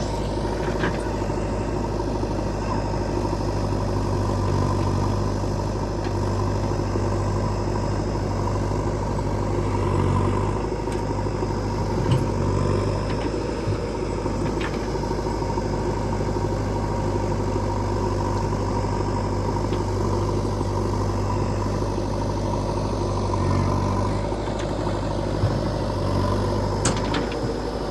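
Heavy diesel machinery engine running at a steady idle, with a few short sharp knocks.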